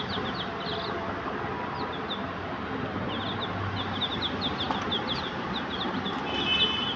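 A group of young chicks peeping: many short, high chirps, each dropping in pitch, over a steady background hiss, with a longer, steadier peep near the end.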